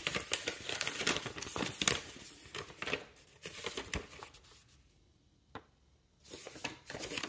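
A sheet of paper being handled and unfolded, crinkling and rustling in quick crackles for about four seconds, then going almost quiet with a single tap and a little more rustling near the end.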